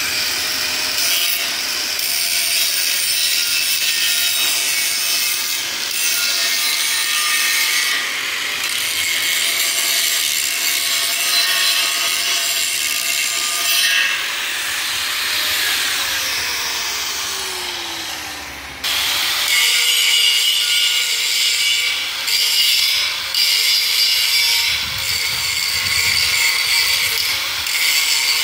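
Handheld electric angle grinder grinding welded mild steel, a steady harsh grinding noise over the motor's high whine. About two-thirds of the way through, the whine slides down in pitch and the noise fades as the disc winds down, then full-power grinding cuts back in abruptly.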